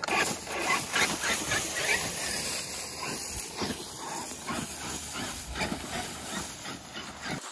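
A rake towed behind a radio-controlled monster truck, scraping over asphalt and leaves: a continuous rough scraping broken by many irregular scratches and clatters.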